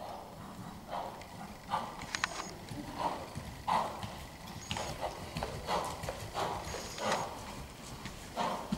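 Hoofbeats of a dressage horse working at pirouettes on soft sand arena footing: a dull, uneven beat roughly every half second to second, with a few faint high clinks.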